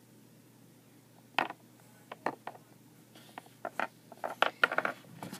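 Small hard polymer clay charms clicking and tapping as they are handled and set down on a hard shelf: a few single clicks starting about a second and a half in, then a quicker run of taps near the end.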